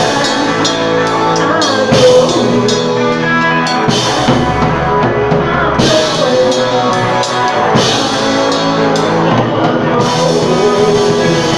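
Loud rock music with a drum kit and pitched instruments playing throughout.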